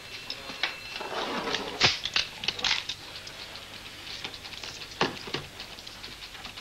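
Sharp metallic clicks and handling noises of pistols being handled and checked, a few irregular clicks with the loudest about two seconds in and about five seconds in.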